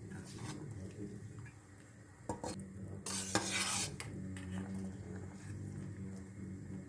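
Kitchen utensils clinking and scraping against dishes and pans, over a steady low hum, with a louder hiss lasting about a second roughly three seconds in.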